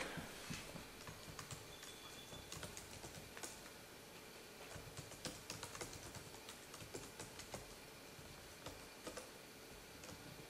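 Typing on a computer keyboard: a faint, irregular run of key clicks.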